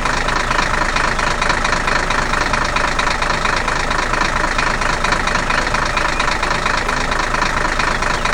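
Combine harvester engine running steadily at a constant pace, with a fast, even pulsing rattle.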